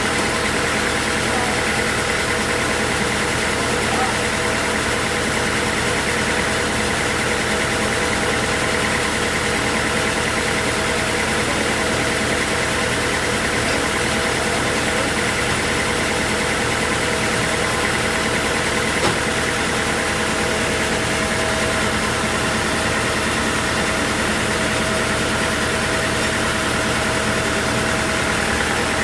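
Sawmill machinery running steadily: a constant mechanical drone with a steady high whine and no change in level.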